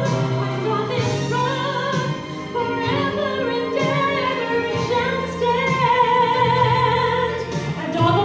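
A woman singing a solo into a microphone, amplified through a PA, holding long notes over an instrumental accompaniment.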